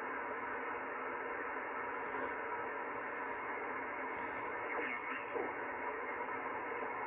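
Henry Tempo One transceiver's receiver hissing with 80-meter band noise and static, held within the narrow sideband passband. A faint falling whistle sweeps down about five seconds in.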